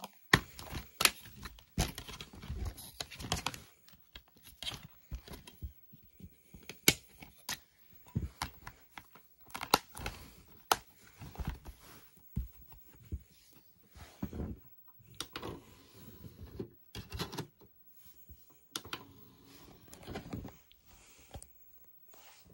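A plastic DVD keep case being handled and opened by hand, with scattered sharp clicks, snaps and rattles of plastic as the disc is taken out.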